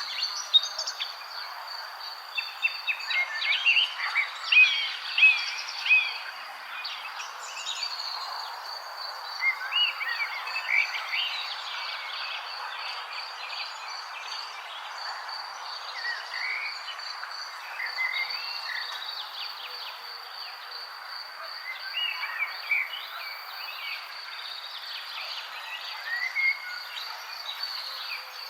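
Wild birds chirping in short, scattered calls over a steady, high, pulsing insect trill and a soft even hiss.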